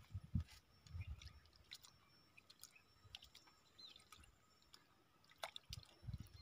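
Soft, wet squelches of a hand squeezing fermented rice in water in a clay pot, spread out with long near-silent gaps. Near the end come a few louder wet sounds as a dripping handful is brought to the mouth.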